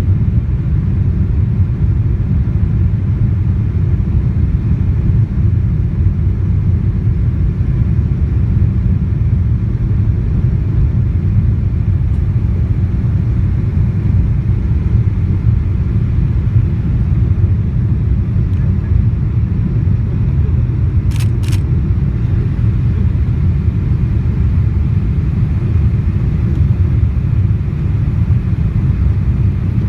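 Cabin noise of a Boeing 777-200ER on approach, heard from a window seat over the wing: a steady low rumble of the GE90 engines and rushing air past the extended flaps. Two quick clicks come about two-thirds of the way through.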